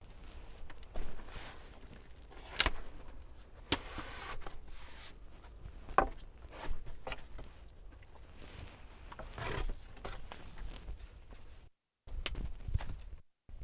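Wooden teepee poles being handled and shifted. A few sharp knocks of wood stand out among softer rustling and footsteps.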